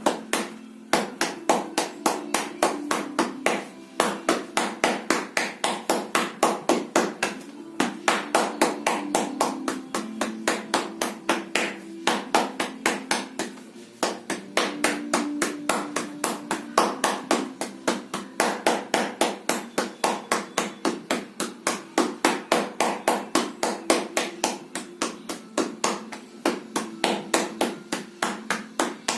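Percussive self-massage: quick blows striking the body in a steady rhythm of about five a second, in runs broken by short pauses.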